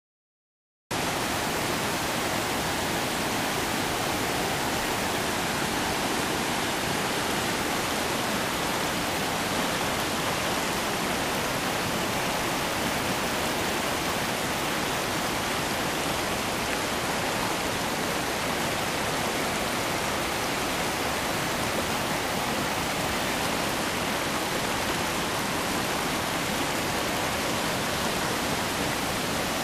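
Shallow mountain stream rushing over and between rocks in a steady roar of white water, starting about a second in.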